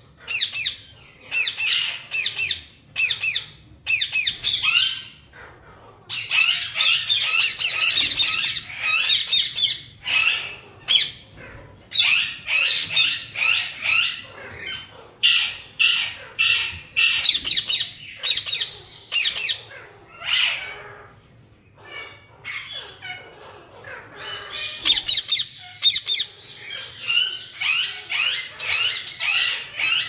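Lutino Indian ringneck parakeets squawking: runs of loud, high-pitched calls with short gaps between them, easing off for a few seconds about two-thirds of the way through before picking up again.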